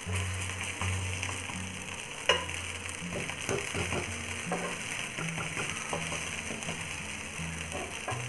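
Potato tikkis sizzling steadily as they shallow-fry in oil on a black tawa, with a steel spatula scraping and tapping against the griddle; the sharpest knock comes about two seconds in.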